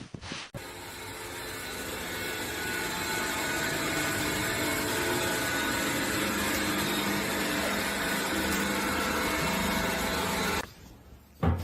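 A steady whirring motor noise with a faint hum, like a household appliance running, growing slightly louder over the first few seconds and cutting off abruptly near the end.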